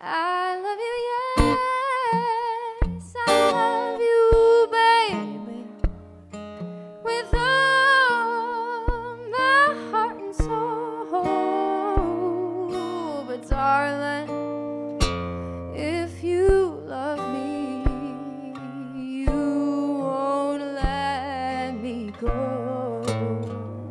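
A woman singing a slow acoustic blues, with wavering held notes, accompanied by a steel-string acoustic guitar played live.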